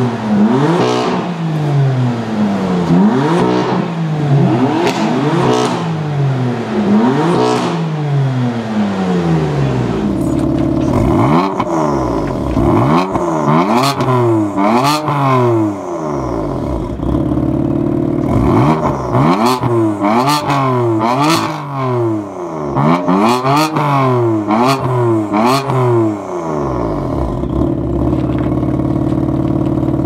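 BMW M3/M4 twin-turbo straight-six engines on stock exhausts free-revving, about five even revs some two seconds apart. From about ten seconds in, a BMW M4 with an Akrapovic Evolution exhaust and catless downpipe is blipped repeatedly with sharp pops between revs, then settles to a steady idle near the end.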